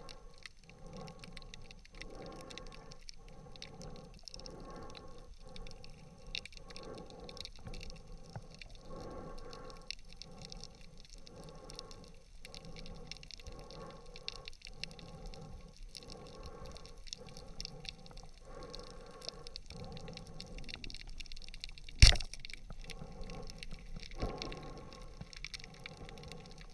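Underwater ambience of a continuous fine crackling with a rhythmic pulsing sound recurring under a second apart. About 22 s in, one sharp, loud crack from a speargun being fired, after which a fish is on the spear.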